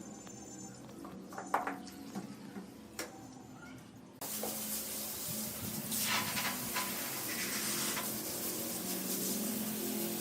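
A few light clicks and taps, then about four seconds in a steady hissing noise starts suddenly and runs on.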